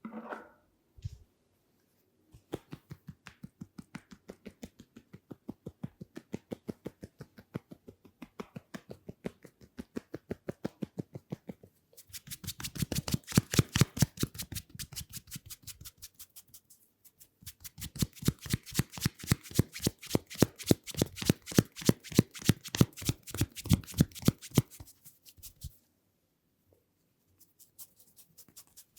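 Tapping massage: rapid, rhythmic hand strikes, several a second, lighter at first, then two louder, faster spells with a short break between them.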